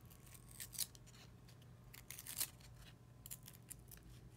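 Topps Chrome basketball cards sliding against each other as they are thumbed through a pack-sized stack by hand: a few faint, brief swishes of card stock.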